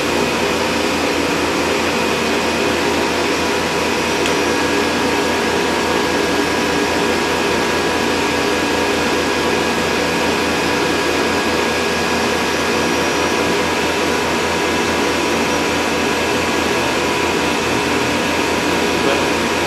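Steady machine noise from running laser welding bench equipment: an even whirring air noise with a low hum and a few constant high tones, unchanged throughout.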